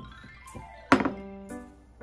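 Piano background music, with a sharp kitchenware clink about a second in and a softer knock at the start.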